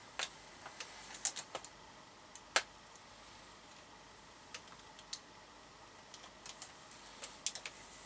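Scattered sharp plastic clicks and taps from a Thunderpole T-X handheld CB radio and its speaker-microphone being handled and the speaker-mic lead plugged in. One click is louder about two and a half seconds in, and a quick run of clicks comes near the end.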